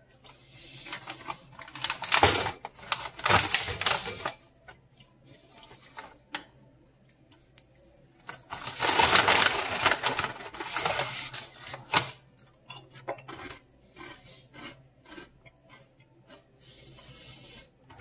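Crunching and chewing fried squid crisps, a crackle of sharp clicks in clusters. About halfway through comes a longer, brighter rustle as a hand reaches into the shiny plastic snack bag, then more crunching.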